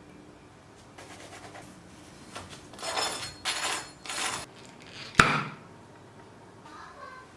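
Kitchen food-preparation sounds: three short scraping strokes, then one sharp clink of a dish or utensil.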